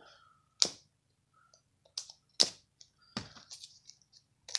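A handful of sharp, irregular clicks and taps of small plastic pieces being handled, with faint rustling between them.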